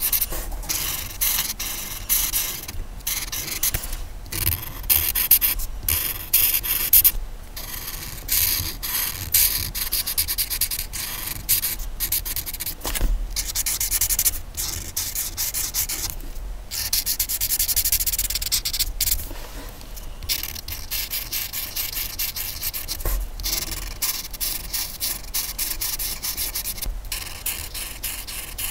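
Colouring on paper: a colouring tool rubbing across the page in quick back-and-forth strokes, in runs broken by brief pauses.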